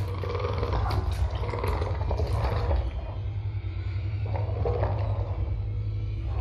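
Horror-film sound design: a steady deep rumble under rough, irregular growls from a cave creature.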